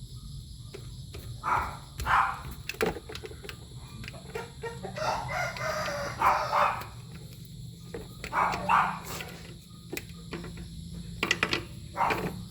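A rooster crowing, one long call about five seconds in, with shorter sounds of the same kind before and after it.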